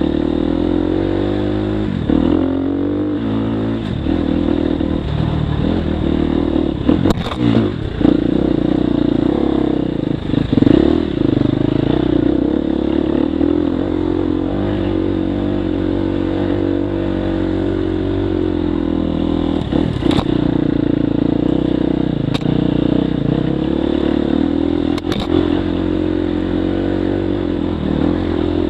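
Dirt bike engine running as the bike is ridden over rough trail, its revs rising and falling with the throttle. Sharp knocks from the bike hitting rocks and bumps come several times, about seven seconds in, near ten seconds, and three times in the second half.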